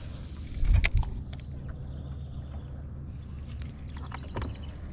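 Boat motor running with a steady low hum, a single knock about a second in, and a few faint high bird chirps.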